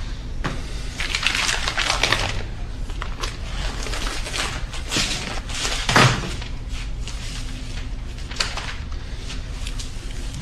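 Dishes and small kitchen items clattering as they are handled, a run of scattered knocks and clicks, with one louder thud about six seconds in.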